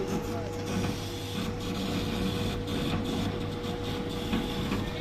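Desktop CO2 laser cutter running a cutting job: the laser head's stepper motors whir as the gantry moves it across the bed, over a steady hum from the machine.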